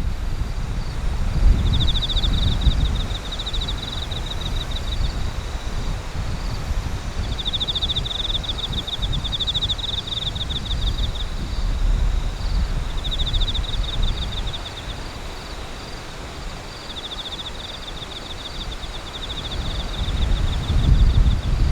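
Wind rumbling on the microphone. Over it, an insect calls in five trains of rapid, high-pitched pulsed chirps, each lasting one to four seconds.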